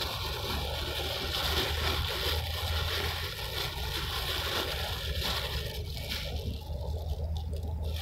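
Water sloshing and a plastic bag rustling as hands work a bag inside a bucket standing in shallow water. The noise eases off about six seconds in.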